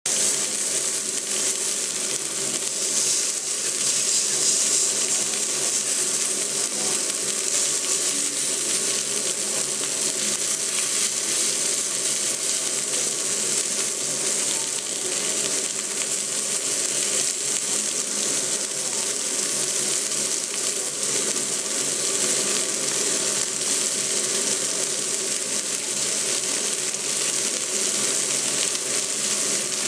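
Meat sizzling steadily on a hot cast-iron griddle plate over a gas burner, with chicken pieces, beef and sausages frying in their own fat.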